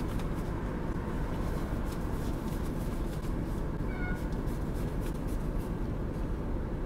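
Steady low rumble inside a car's cabin, with faint light ticks over it.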